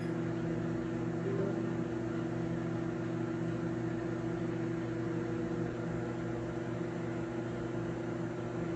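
Toshiba countertop microwave oven running, a steady electrical hum while it heats.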